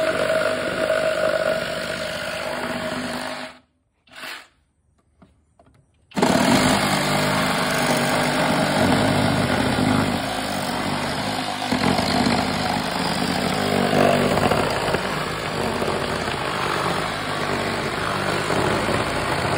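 Flex cordless reciprocating saw cutting through a stack of wooden boards with nails in them. It cuts out for about two and a half seconds a few seconds in, then starts again and keeps cutting steadily.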